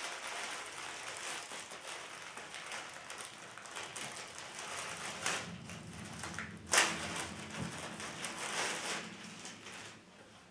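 Rustling and crinkling as a new cap is handled and taken out of its packaging, with scattered small clicks and a sharper, louder crackle about two-thirds of the way through; the handling dies away near the end.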